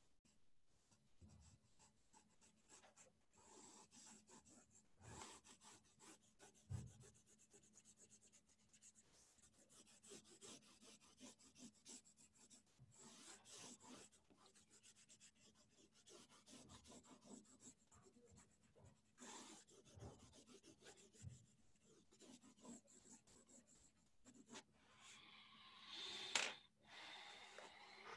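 Faint scratching strokes of a pen on paper while a picture is being drawn, with irregular pauses, and a louder squeaky stroke near the end.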